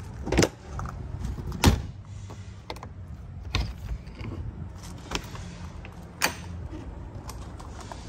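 Horse-trailer escape door being worked by hand: a series of sharp metal clicks and clunks from its drop-down window and paddle latch as the aluminum door is unlatched and swung open, the loudest about one and a half seconds in, over a steady low hum.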